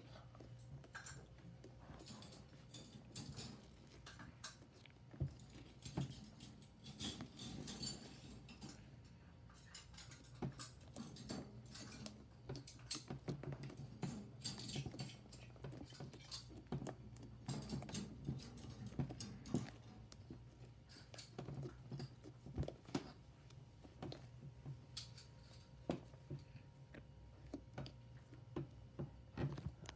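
Green homemade slime being poked, pressed and squished by hand against a wooden tabletop: many small irregular wet clicks, pops and squelches.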